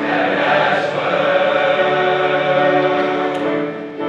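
Boys' high school choir singing, holding a sustained chord in several voice parts between lines of the song, easing off near the end.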